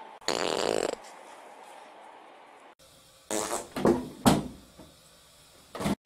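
A loud, rasping fart lasting under a second. After a break come several short, loud blasts of the same kind in quick succession, and one more just before the end.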